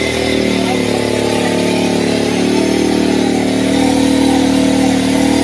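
Single-cylinder four-stroke Bajaj Pulsar motorcycle engine, run on LPG, running steadily on a stand to power phone chargers; its pitch dips slightly early on and then holds.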